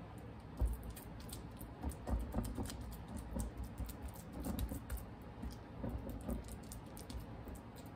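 Fingers pressing and patting raw ground-beef meatloaf mixture flat in a glass casserole dish: soft, irregular squishy pats with many small clicks.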